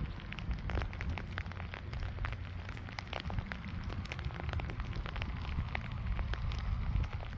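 Rain falling: many small drops ticking irregularly close to the microphone, over a steady low rumble.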